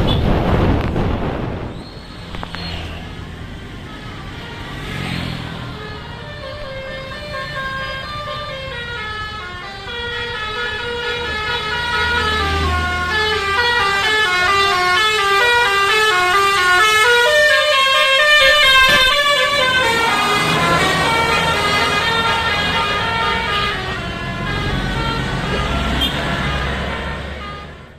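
Indonesian bus 'telolet' horn (Basuri type) playing a long multi-note tune, its chords stepping up and down in pitch, over the bus engine running. Wind on the microphone for the first two seconds; the horn cuts off suddenly at the end.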